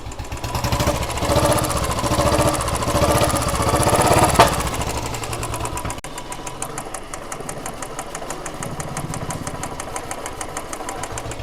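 Royal Enfield Bullet 350 single-cylinder engine running after a rebuild, revved up and down for the first few seconds, with a sharp click about four and a half seconds in, then settling to a steady idle. The tick-tick valve noise it had before is gone.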